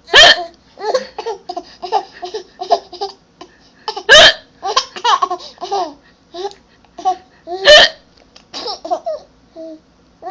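A young child hiccuping and laughing: three loud, sudden hiccups, the first right at the start, then about 4 s and about 7.7 s in, with bursts of high-pitched giggly laughter in between.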